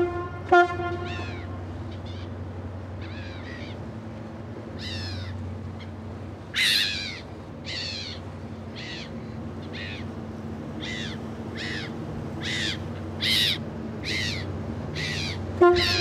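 Birds calling over and over, each call a quick falling cry, above the steady low drone of the passing ship's engine. A few short, pitched toots sound right at the start and again near the end, and they are the loudest thing here.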